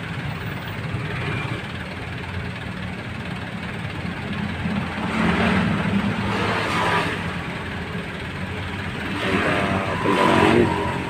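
Road traffic: a queue of cars and a truck idling and starting to pull away, engines revving up about five seconds in and again near the end.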